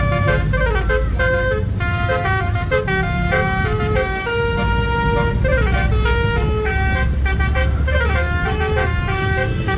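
Basuri musical bus horn (telolet) playing a quick melody of short stepped notes with a few longer held ones, over a low engine rumble.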